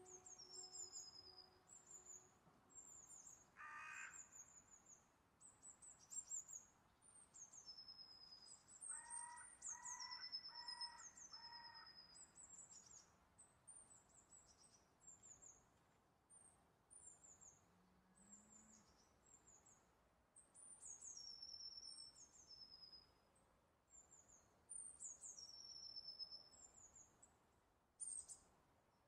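Faint birdsong: small birds repeating short, high chirping calls, with a run of four lower notes about nine to twelve seconds in. A held musical note fades out in the first couple of seconds.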